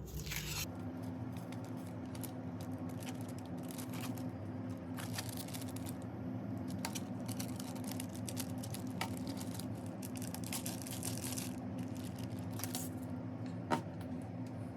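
Small clicks and crinkling of a toy rubber-band ornithopter's parts being handled and fitted together, with one sharper click near the end, over a steady low hum.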